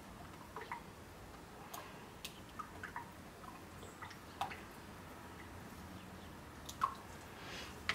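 Faint, irregular clicks and taps of a utensil against a container as cold process soap batter is stirred by hand, just after the lye solution has gone into the oils.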